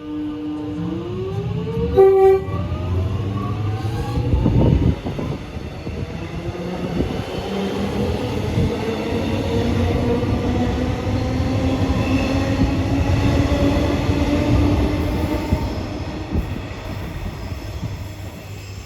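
Alstom X'Trapolis 100 electric multiple unit departing: a short horn blast about two seconds in, then the traction motors' whine rising slowly in pitch as the train accelerates away, over the rumble of the wheels on the rails, fading near the end.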